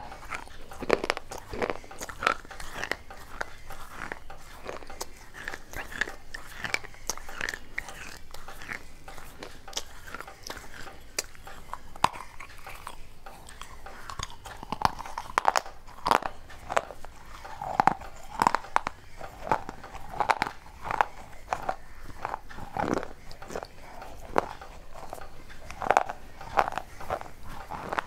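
Fired clay pot pieces being bitten and chewed: repeated sharp, irregular crunches and cracks, coming thicker and louder in the second half.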